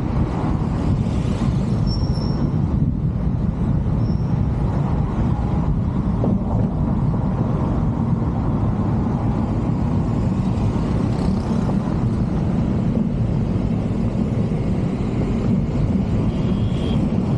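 Car driving at a steady speed: a constant low rumble of road and wind noise. A few faint, brief high tones sound about two and four seconds in and again near the end.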